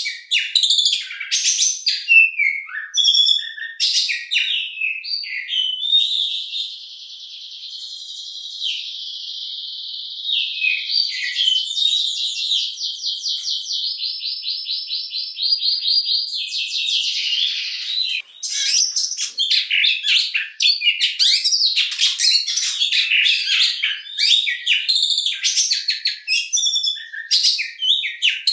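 Oriental magpie-robin singing: quick, varied whistled and chattering phrases, then a long fast trill held for about ten seconds from about six seconds in, then rapid varied phrases again.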